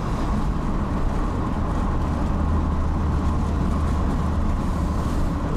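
Steady road and engine noise of a moving car heard from inside the cabin: a low rumble that grows a little stronger in the middle.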